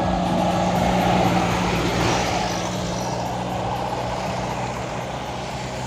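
A motor vehicle's engine running steadily under a haze of tyre and road noise, slowly fading away.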